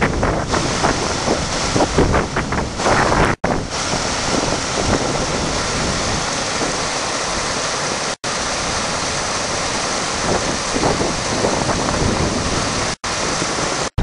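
Small moorland stream cascading over rocks, a steady rush of water mixed with wind buffeting the microphone, gustiest in the first few seconds. The sound drops out for an instant three times.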